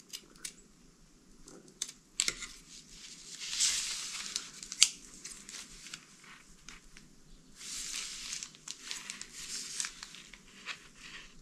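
Scissors cutting self-adhering felt sheet, with the crinkle of its plastic wrapper in two longer stretches and a sharp snip about five seconds in.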